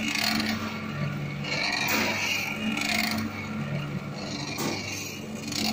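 Pan roller mixer running, with a steady motor hum under the scraping of its rollers and scrapers through a damp fly ash, sand and cement mix. The scraping swells and fades in a regular cycle about every second and a half as the pan turns.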